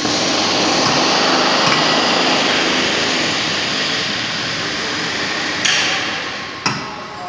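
Foaming tunnel press machinery running with a loud, steady hiss that starts suddenly, then two sharp metallic knocks near the end.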